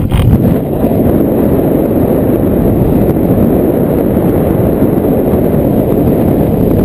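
Wind rushing over a camera microphone during a paraglider flight: a loud, steady, low rush with no distinct tones. A brief knock comes right at the start.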